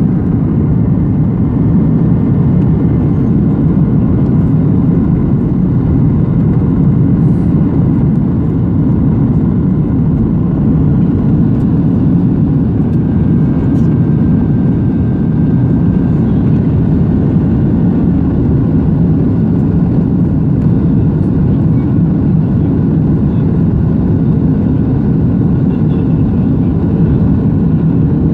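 Cabin noise inside a Boeing 737-700 in flight, heard from a seat over the wing: a loud, steady low rumble of airflow and the CFM56 engines, with a faint thin whine above it.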